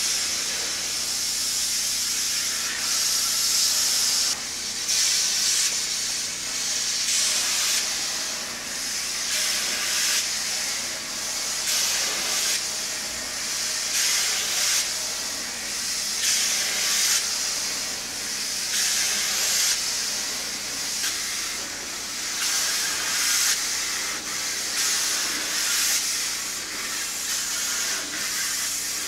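High-pressure washer jet hissing against slatted fence panels, swelling and easing every second or two as the wand sweeps up and down and side to side.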